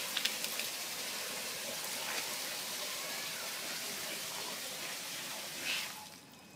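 Steady stream of water pouring from a hose outlet and splashing onto wet leaf litter, driven by a mini 12 V DC submersible pump. The sound drops away sharply about six seconds in.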